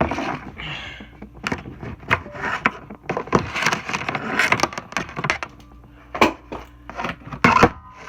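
Close handling noise: a string of irregular knocks, clicks and scraping rustles, as objects are moved about near the microphone, over a faint steady hum.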